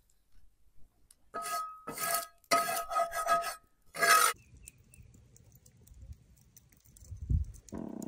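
A metal spatula scraping a cast iron skillet, about five quick scrapes with a metallic ring, from about a second and a half in to about four seconds in. Near the end there is a low thump.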